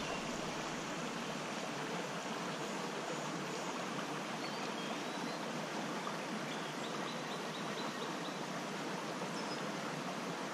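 Small trout creek running steadily over shallow riffles: an even rush of flowing water.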